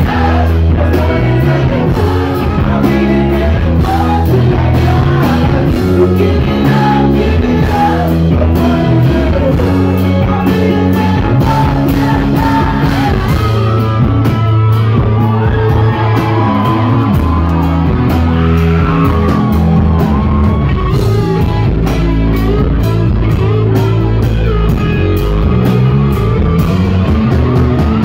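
Live rock band playing loud in a large room: a lead singer over bass guitar, electric guitar and drums.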